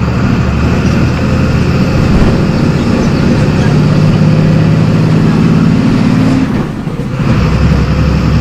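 MWM 6.12 TCAE six-cylinder turbodiesel of a Volksbus 17.210 bus pulling under load, its pitch slowly rising. About six and a half seconds in the sound briefly drops away, typical of lifting off for a gear change on the Eaton five-speed manual gearbox, and the engine then pulls again at lower revs.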